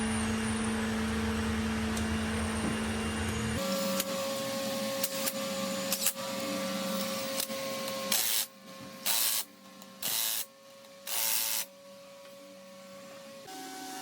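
Workshop machine hum, then light clicks and four short hissing bursts of compressed air, each about half a second long, in quick succession.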